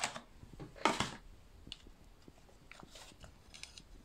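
Plastic kitchen containers being handled: a short scrape of plastic on plastic about a second in, then a few faint clicks and taps.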